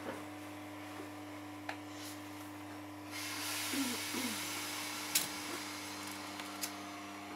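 Steady low hum from the onboard equipment of a standing Class 321 electric multiple unit, heard from inside the carriage. About three seconds in, a hiss of air sets in and holds, with a few sharp clicks.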